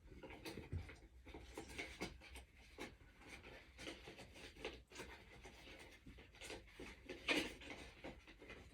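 Faint rustling, scraping and light clicking of paper and cardboard being handled as leaflets and packaging are packed back into a box, with a louder scrape about seven seconds in.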